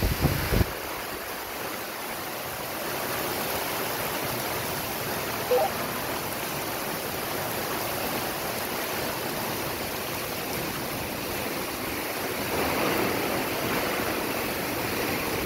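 Heavy rain pouring down in a storm, a steady even hiss. A gust of wind buffets the microphone right at the start.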